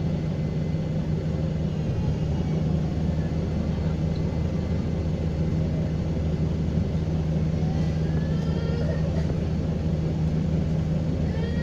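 Diesel engine of a First South Yorkshire single-deck or double-deck bus, fleet number 67144, running with a steady low drone. A faint high turbocharger whistle glides up and down in the last few seconds.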